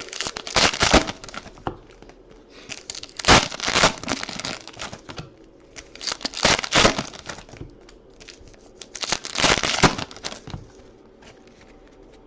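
Four crinkly tearing rips about three seconds apart: foil-wrapped trading card packs being torn open one after another.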